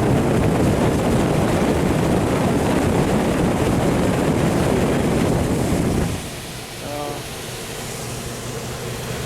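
Steady rush of air from a Payne package unit's indoor blower motor, run by jumping its 24-volt control circuit to test that the motor still works. The rush drops off sharply about six seconds in, leaving a lower hum.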